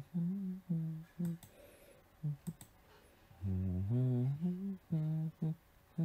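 A person humming a tune in short, separate notes, with a few mouse clicks between them.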